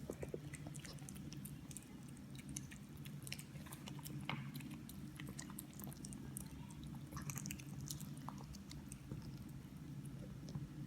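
A mother cat licking and chewing at her newborn kittens: many small wet clicks and smacks, scattered irregularly, over a steady low hum.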